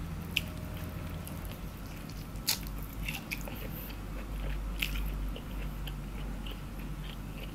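Chewing and mouth sounds of someone eating a deep-fried boiled egg in sambal, which she calls very juicy. A few sharp clicks come about half a second, two and a half and five seconds in.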